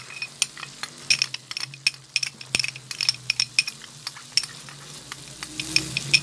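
Chicken frying in butter, ghee and oil in a kadai, sizzling with irregular sharp crackles as yogurt is stirred in with a silicone spatula.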